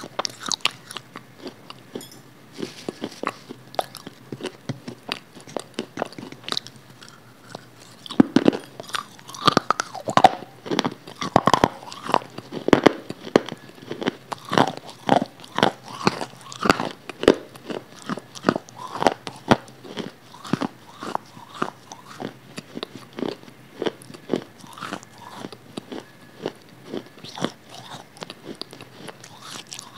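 Close-up mouth sounds of a person biting and chewing food with wet, crunchy clicks, heavier and louder for a stretch in the middle.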